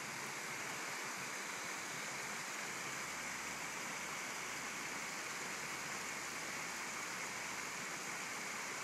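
Steady, even outdoor background hiss with no distinct events: no club strike or voices.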